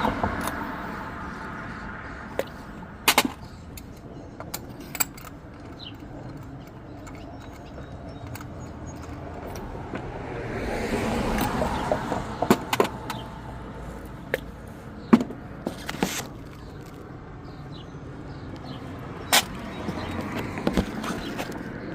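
A vehicle passing by, its sound swelling up and fading away around the middle, over a run of scattered sharp clicks and knocks.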